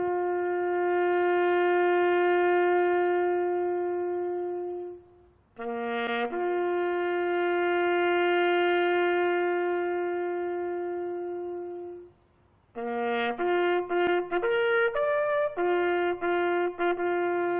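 Background music: a slow solo bugle call on a brass horn. Two long held notes, each led in by a short lower note, then a run of shorter notes at different pitches from about thirteen seconds in.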